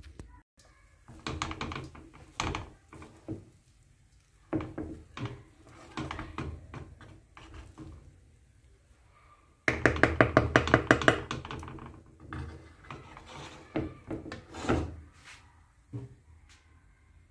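A utensil stirring and fluffing cooked rice with peas in a pan, scraping and knocking against the pan in scattered strokes. About halfway through comes a fast run of roughly eight quick knocks a second, the loudest part.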